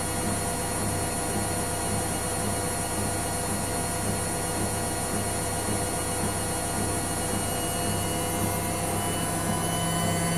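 Hotpoint Ariston ARSL100 washing machine running: a steady motor hum with several whining tones held at one pitch.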